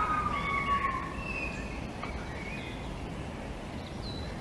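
Red fox calling: a loud, high, slightly falling call that fades in the first second, followed by fainter, higher calls over the next two seconds and a short high note near the end, over a steady hiss.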